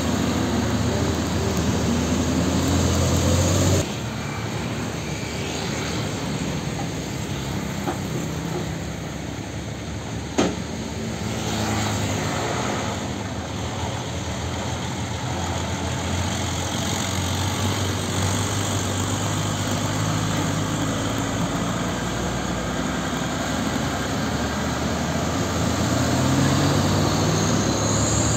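Heavy diesel trucks, including an old Nissan Diesel (UD) cab-over, driving slowly past with engines running and tyre noise. The sound shifts abruptly about four seconds in. There is a single sharp click about ten seconds in, and an engine revs up near the end as a truck pulls away.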